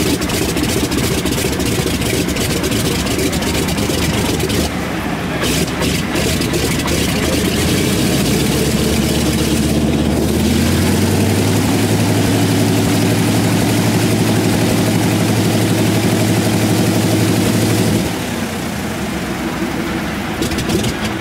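Piston aircraft engine running steadily. It grows louder about eight seconds in, holds steady, then drops off abruptly about eighteen seconds in.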